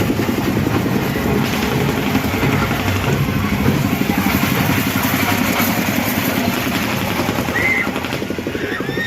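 A motor running steadily with a fast, even throb, with a few short high squeaks near the end.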